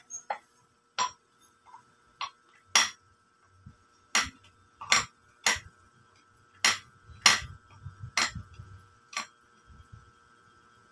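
Pitbull puppy gnawing on the wooden handle of a claw hammer: about a dozen sharp, irregular clicks and knocks of teeth and hammer, stopping about nine seconds in.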